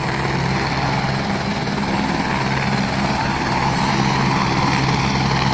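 A helicopter running on the helipad: a steady engine and rotor drone with a low hum, growing slightly louder after about four seconds.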